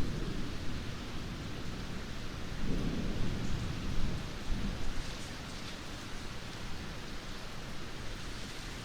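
Steady rainfall with low rumbles of distant thunder, one swelling up about three seconds in and fading over the next couple of seconds.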